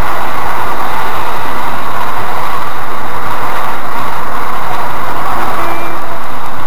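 Cabin noise of a Škoda Rapid 1.6 MPI petrol car on the move, picked up by a dash camera on the windscreen: a loud, steady rush of engine and road noise.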